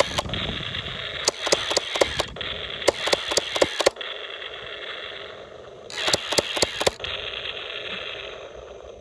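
A toy remote-control tank's built-in speaker playing a tinny engine-rumble sound effect. Three bursts of rapid clicking come over it, each about a second long, and the rumble fades toward the end.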